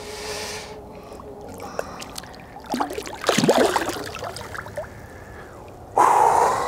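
Lake water splashing and sloshing as a landed carp is released back into the margin, in uneven bursts with a louder splash near the end.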